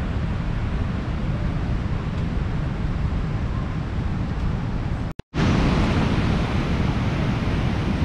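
Wind buffeting the microphone: a steady, rumbling rush. It drops out to silence for a split second about five seconds in, then returns slightly louder.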